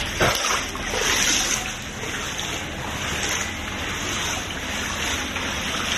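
Shallow floodwater splashing and sloshing as someone wades through it, with louder splashes near the start and about a second in.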